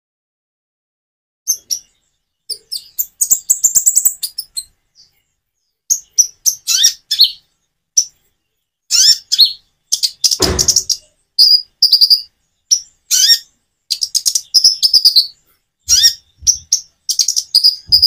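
Konin (kolibri ninja) sunbird singing: rapid high chirps and short trills in phrases, with natural pauses between them. A brief low rumble comes about ten seconds in.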